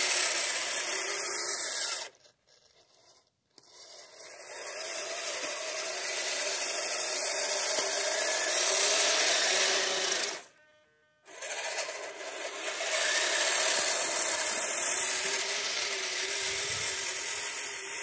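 Kyosho Blizzard RC snowcat's twin 380 electric motors and geared track drive whirring as it plows snow with its blade. It cuts out twice, about two seconds in for a second and a half and again about ten seconds in, spinning back up each time.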